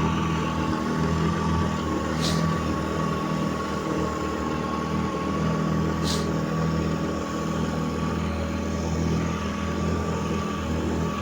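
Vikhr outboard motor, a two-stroke two-cylinder engine, running steadily at an even speed with a thin whine over its hum during a test run. Two short high hisses cut through, about two seconds in and again about six seconds in.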